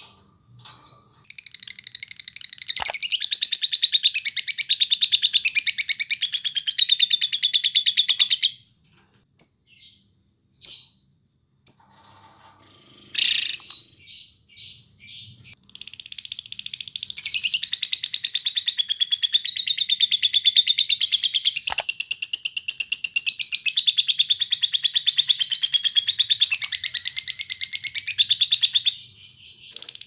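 A lovebird's ngekek: a long, rapid, high-pitched chattering trill of about seven seconds, then a few short chirps and calls, then a second unbroken trill of about twelve seconds that stops near the end. The length of each trill is what a 'durasi' master recording shows off.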